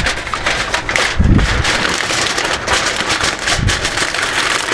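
Crackling, rain-like noise of an aluminium foil wrap around beef short ribs as spritz liquid is added and the foil is handled, with two soft low thumps.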